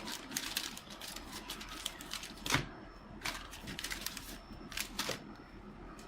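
Irregular light clicks and taps in quick clusters, the loudest about two and a half seconds in, over a faint steady hum.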